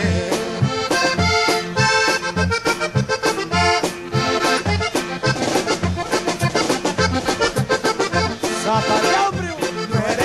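Tejano conjunto band playing live: a button accordion leads the melody over a steady bass beat, an instrumental passage with no singing.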